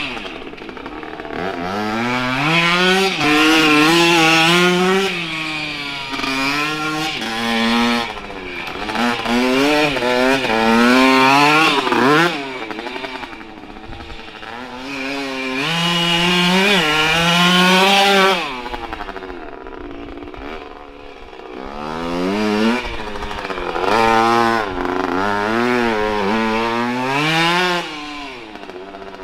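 1983 Honda CR50's 50cc two-stroke engine revving up and easing off over and over as the bike is ridden, its pitch climbing and dropping in repeated waves. It grows louder and fainter several times.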